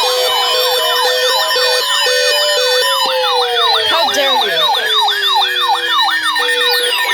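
Several electronic sirens sounding at once: a fast yelp sweeping up and down about three times a second, over a slow wail that falls in pitch, with an on-off beep underneath.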